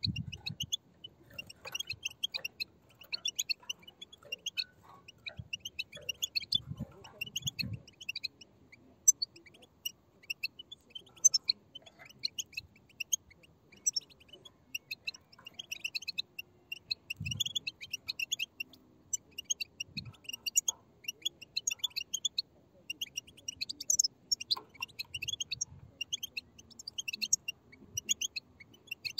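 A group of European goldfinch chicks chattering: a dense, continuous stream of short, high chirps, with a few soft low thuds.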